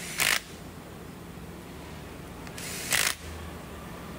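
Cordless drill-driver spinning in two short bursts, about a third of a second each, near the start and about two and a half seconds in, as it runs down the pump head bolts.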